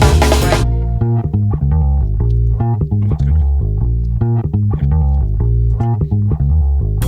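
Background music led by a bass guitar and guitar, with a steady rhythmic bass line.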